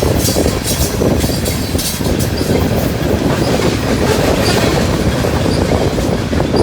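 Train passing close by, its wheels clattering rhythmically over the rail joints, with brief high squeals in the first couple of seconds.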